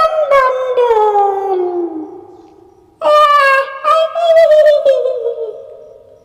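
Two long, eerie howling wails, each sliding slowly down in pitch and fading: the first trails off about two seconds in, the second starts about a second later, wavers, and dies away near the end.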